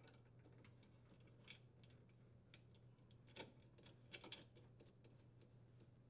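Near silence with a few faint metallic clicks and ticks, the loudest about three and a half and four seconds in: a metal strain relief nut being threaded by hand onto a power cord connector at a junction box.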